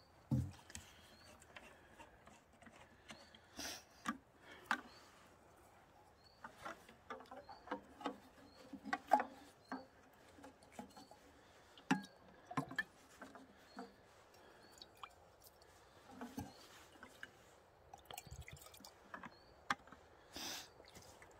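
Handling noise from a flat plastic water bottle and its cup: scattered light clicks, taps and knocks as the cap is worked and things are set down.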